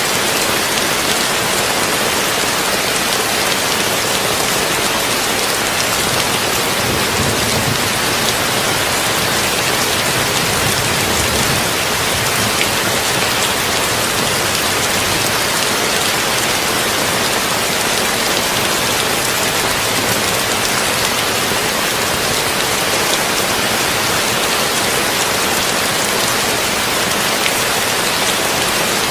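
Heavy rain falling steadily on a tin roof, an even dense hiss blended with deep brown noise. A low rumble of distant thunder swells and fades about a third of the way through.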